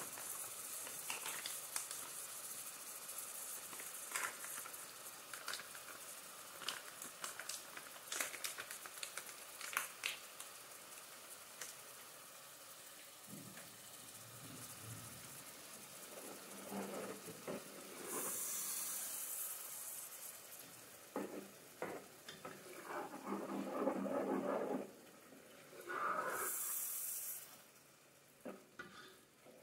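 Tomato sauce and sardine mixture sizzling in a pot, with clicks and scrapes of a plastic spatula stirring it against the pan. Two louder spells of hiss come about two-thirds of the way through and near the end.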